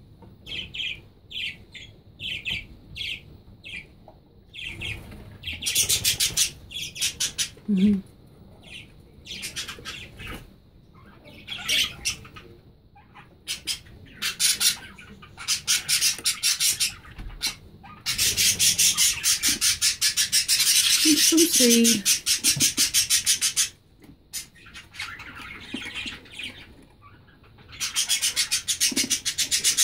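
Budgerigars calling: a run of short chirps, about two a second, then long harsh rasping squawks, the loudest lasting about five seconds from just past the middle.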